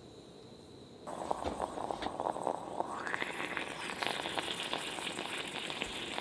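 Liquid poured into a cup or pot, starting about a second in, with a fizzing, crackling splash whose pitch rises partway through as the vessel fills.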